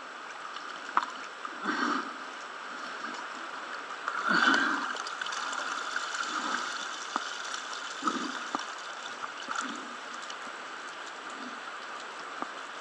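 Lake water sloshing and splashing close by as a diver moves at the surface, over steady rain on the water. There is a louder splash about four seconds in.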